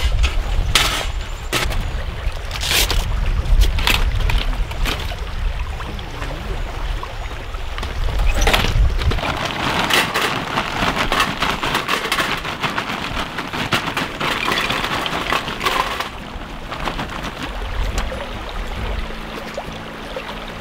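Metal clinks and knocks of a folding fire pit and charcoal chimney starter being set up on river stones, over a low rumble. About ten seconds in comes a dense rattle of charcoal being poured from a bag into the chimney starter.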